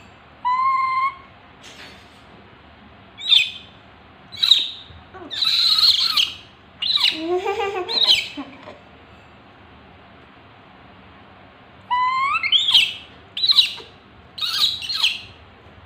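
Baby macaque crying in a series of short, high-pitched calls, some holding one pitch and some sweeping upward. There is a pause of about three seconds in the middle.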